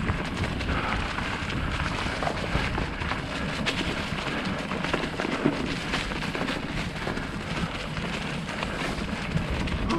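Mountain bike rolling over a dirt trail: a steady crunching, crackling rattle of tyres on dirt and debris, with rumbling wind noise on the microphone.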